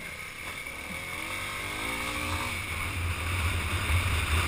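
Kawasaki dirt bike engine pulling along a dirt trail, revving up and growing louder, heard from the rider's own bike.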